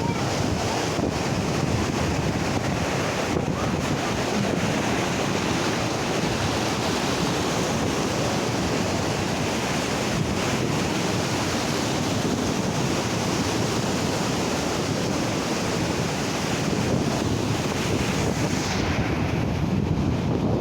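Steady loud rush of flowing water, with wind buffeting the microphone.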